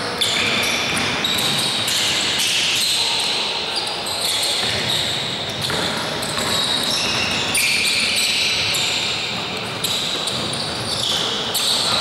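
Basketball game on a wooden court: sneakers squeak repeatedly in short high-pitched chirps as players cut and stop, and the ball bounces on the floor.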